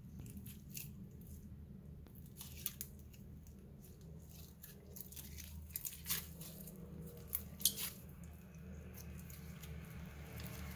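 Slime being squished and pulled by hand, giving irregular small clicks, pops and crackles, a few sharper ones past the middle, over a faint steady low hum.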